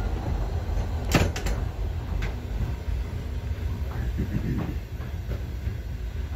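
Steady low rumble of a TEM18DM diesel shunting locomotive and the passenger coaches it hauls rolling past on the next track, heard from inside a railway carriage. A few sharp knocks come about a second in.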